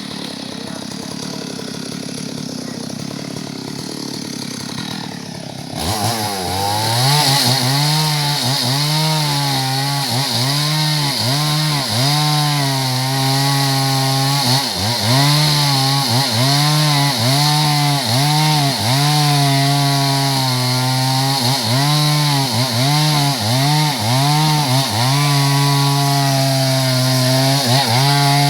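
Two-stroke chainsaw, quieter for about the first six seconds, then revved to full speed and cutting through a log. Its engine pitch dips and recovers about once a second as the chain loads in the cut.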